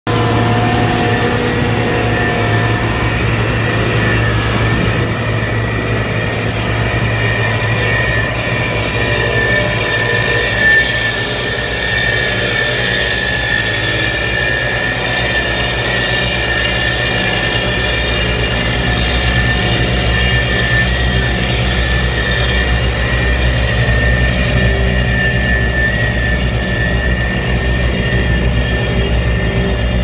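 Small Dynapac tandem road roller running steadily as it drives over gravel: a low engine drone under a steady high whine. There is one brief knock about a third of the way through.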